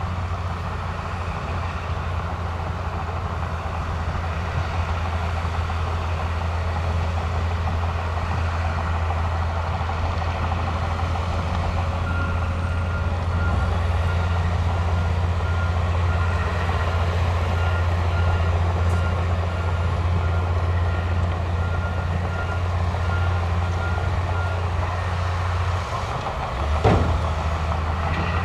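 Heavy diesel engines of earthmoving machines (bulldozer and dump trucks) running steadily with a low drone. Through the middle a reversing alarm beeps at an even pace, and near the end there is a short, sharp, loud burst.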